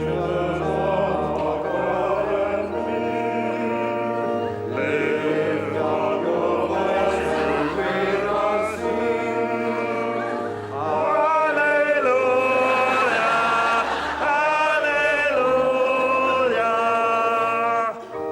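Church hymn sung by many voices over a steady low organ accompaniment. From about the middle, one voice stands out above the rest, singing with a wide vibrato.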